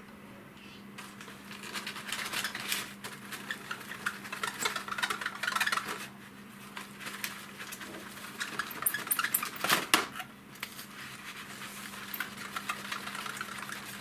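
Small scrapes, rubbing and light clicks of hands working on a plastic model kit, with one sharper knock about ten seconds in. A faint steady low hum runs underneath.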